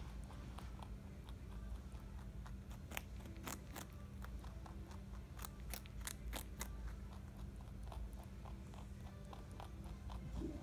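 Rabbit chewing raw carrot: quick, crisp crunches, thickest in two clusters about three and six seconds in, over a low steady hum.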